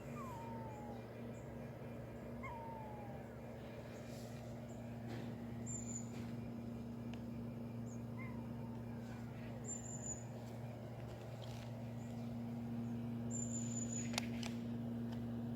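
Cat meowing faintly a few times, each a short call falling in pitch, over a steady low hum.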